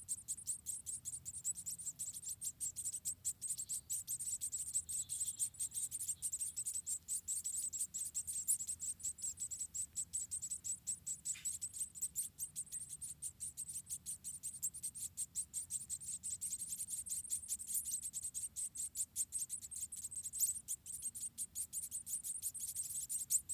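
Insects chirring: a steady, high-pitched trill of rapid, even pulses that runs without a break.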